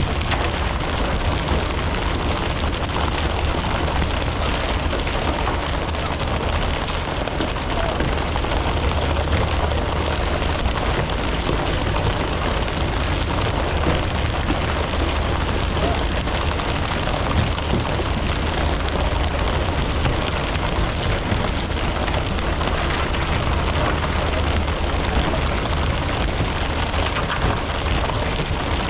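Fishing boat's engine running steadily, a low constant hum under a continuous rush of water noise.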